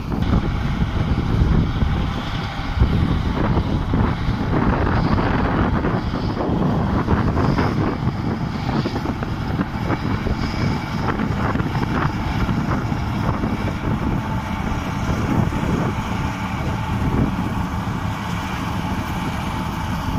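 Wind buffeting the microphone over the steady running of a distant Swaraj 855 tractor's three-cylinder diesel engine driving a straw reaper through stubble.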